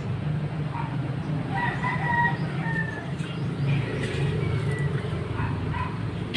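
A rooster crowing, heard between about one and a half and five seconds in, over a steady low hum.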